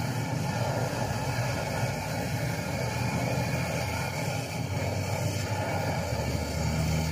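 Portable canister gas stove burning under a wok of tomato and egg soup, a steady hiss throughout.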